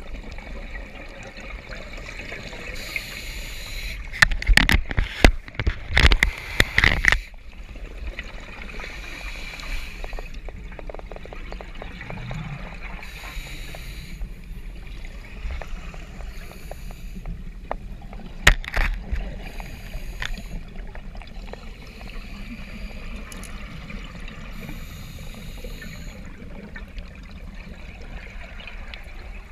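Scuba diver breathing through a regulator underwater: hissing, bubbling exhalations every few seconds over a steady low rumble. A run of loud sharp knocks and bubble bursts comes about four to seven seconds in, and one more a little past the middle.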